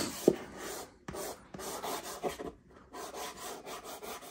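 Hard pastel stick (Nupastel) scraped across pastel paper in a run of scratchy strokes broken by short pauses. A single sharp tap comes about a third of a second in.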